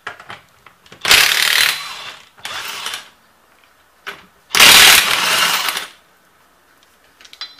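DeWalt XR cordless impact wrench with a 19 mm socket hammering, in three bursts, the last the longest, as it spins the lug nuts off a car wheel.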